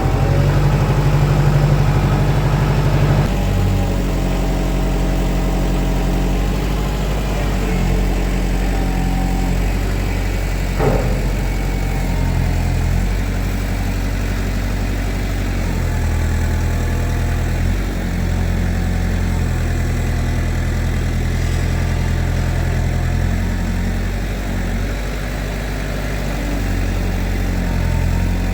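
Tractor engine running, its speed stepping up and down several times as the load is eased along on the forks. A single sharp knock about eleven seconds in.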